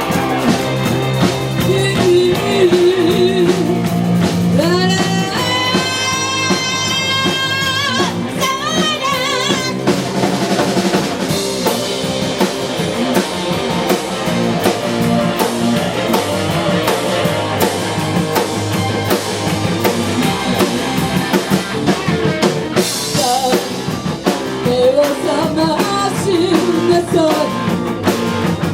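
Rock band playing, with drum kit and guitar and a held melody line that wavers with vibrato several seconds in.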